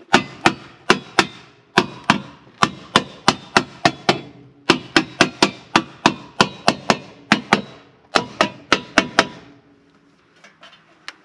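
Rubber mallet tapping a hubcap back onto a car wheel: a long series of sharp blows, about three a second in short runs, stopping about nine seconds in.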